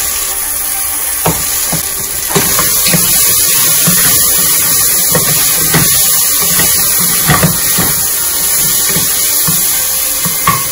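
Onion, tomato and spices frying in oil in a pressure cooker pot, stirred with a wooden spatula. A steady sizzle runs under the spatula's scrapes and knocks against the pot, and it grows louder when the stirring starts about two seconds in.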